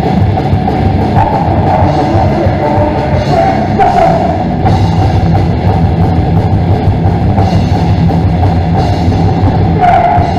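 Hardcore metal band playing live and loud, with drum kit and guitars going without a break.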